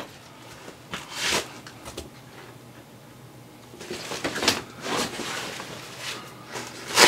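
Hook-and-loop (Velcro) being peeled apart and pressed back as a pouch is taken off and put back on the loop panel inside a nylon backpack lid. It comes as a few short tearing rasps, the strongest about a second in and another sharp one at the very end, with fabric rustling from the pack being handled in between.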